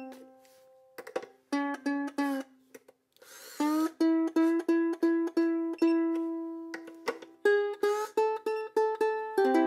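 Ohana VKC-70 Vita spruce-top concert ukulele being tuned: single strings plucked over and over, one string's pitch sliding up as its tuning peg is turned, then the next strings plucked in turn, each higher than the last. A chord is strummed near the end.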